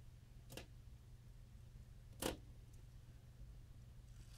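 Near silence with a low steady hum and two short handling clicks, a faint one about half a second in and a louder one a little after two seconds.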